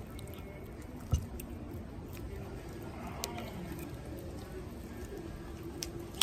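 Soft handling of a raw chicken wing as the skin is worked back off the bone by hand, over a steady outdoor background, with one dull thump about a second in.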